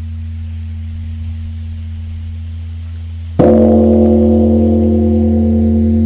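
Large Korean Buddhist bronze temple bell (beomjong) humming low and steady, then struck with its wooden log striker about three and a half seconds in. It rings out loudly with many overlapping tones over a deep hum.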